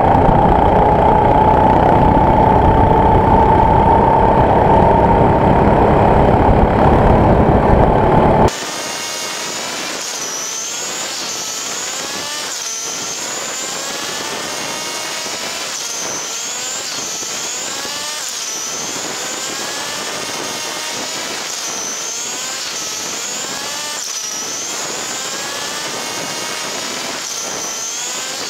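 Go-kart engine running at speed, heard from the driver's seat, with a strong steady note that creeps slightly upward. About eight seconds in the sound abruptly drops in level and turns thin and high. A note then climbs and falls back every second or two.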